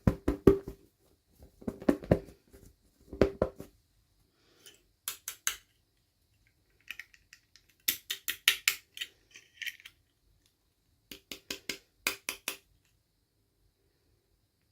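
Small hard toy pieces being handled: groups of quick clicks and taps, a few in a row each time, some with a short ringing note and some sharper and brighter.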